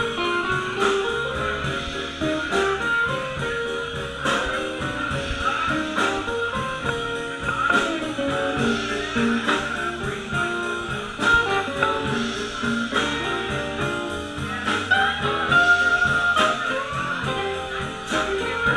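Blues band playing, with electric guitars over a steady beat.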